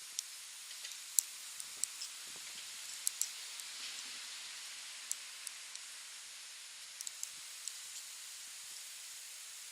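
Metal knitting needles clicking sharply against each other at an uneven pace, over a steady hiss.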